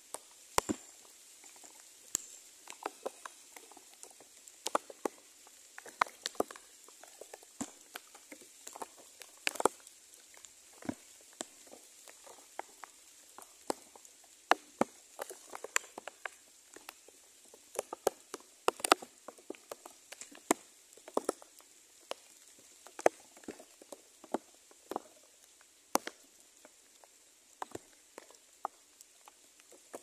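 Scattered sharp clicks and taps, several a second at irregular intervals, over a faint steady high-pitched hiss.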